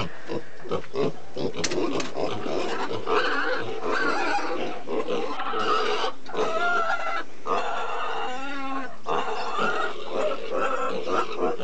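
Piglets grunting continually.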